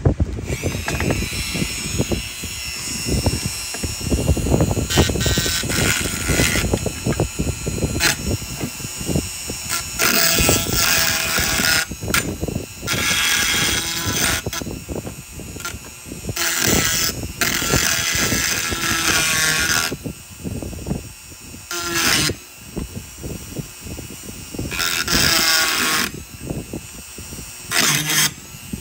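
Handheld power tool with a high whine, running in repeated bursts of one to three seconds that start and stop, with short knocks and clatter in between.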